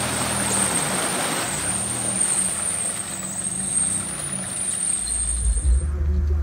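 Turbocharged Toyota 5VZ-FE 3.4 L V6 in a 4Runner revving up and down while it pushes through mud and water, with splashing and tyre noise and a steady high whistle over it. About five seconds in, this gives way to a deeper, heavier low rumble.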